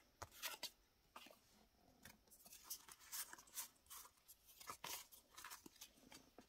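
Faint, irregular clicks and rustles of a stack of Pokémon trading cards being fanned and shuffled in the hands, card edges sliding and snapping against each other.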